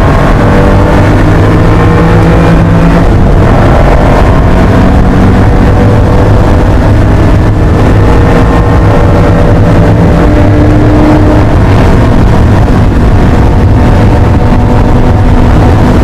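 1980 Porsche 911 SC's air-cooled flat-six engine, heard loud from inside the cabin as the car is driven on a race track. The engine pitch climbs gently and shifts a few times.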